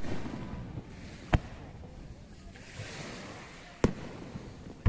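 Fireworks shells bursting overhead as sharp, separate bangs a second or two apart, with a hiss between them.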